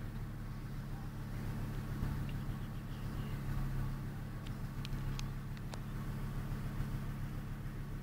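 Motor vehicle engine idling steadily as a low hum, with a few faint sharp clicks about halfway through.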